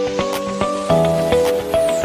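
Background music: a gentle new-age style tune of stepped synthesized notes over a steady beat, with a falling swoosh near the end.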